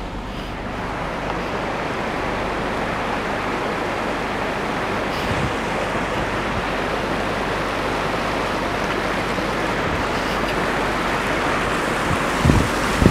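Steady rushing noise of a vehicle driving over a rough, wet, unpaved mountain track, with tyre, engine and running-water noise blended together. A few low thumps near the end.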